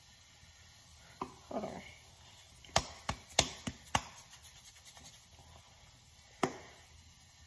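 Plastic spice container being handled while seasoning eggs: a handful of sharp clicks and taps, then a run of light quick ticks as the seasoning is shaken out, and one more click near the end.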